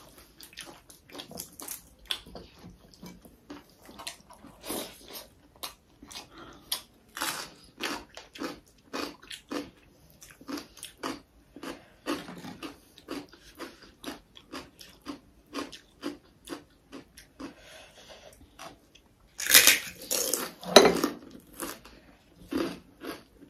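Close-up eating sounds: chewing and smacking on mouthfuls of pork and buffalo curry with rice, in short wet clicks about one or two a second. A louder burst of noise comes about twenty seconds in.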